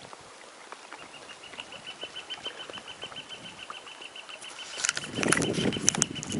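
A small songbird singing a rapid, even trill on one high pitch for about five seconds. From about five seconds in, louder splashing of the kayak paddle in the water joins it.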